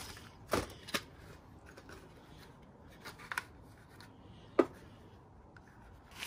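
Small plastic-packaged pins and boxes being handled: light rustles and taps, with a sharp click about four and a half seconds in.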